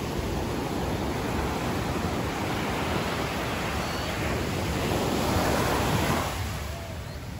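Small ocean waves breaking and washing up a sandy beach. The surf swells toward a peak about five to six seconds in, then falls away as the wash runs out.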